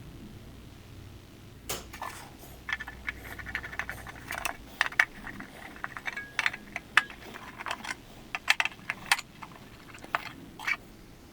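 Irregular clicking and clinking of small metal parts being handled, some with a brief metallic ring.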